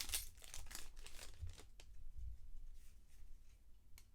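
Foil wrapper of a trading-card pack crinkling and tearing as it is opened, busiest in the first two seconds. The handling then goes quieter, with a single light click near the end.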